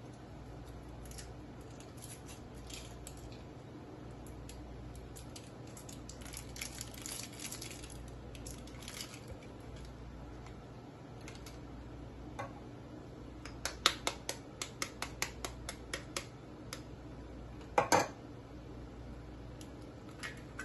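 Kitchen utensils handled at a glass blender jar: soft scraping and pouring, then a quick run of light taps, about four a second, and two sharp knocks near the end.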